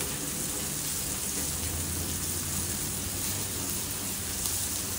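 Steady hiss of rain falling, mixed with steak frying in butter in a pan on a portable butane camp stove.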